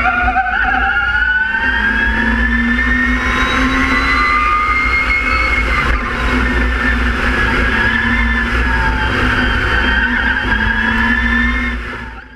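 Mitsubishi MiEV Evolution II electric race car at speed, heard onboard: a high electric-drive whine that climbs in pitch, then wavers up and down with speed over a steady low wind rumble on the microphone. It fades out at the end.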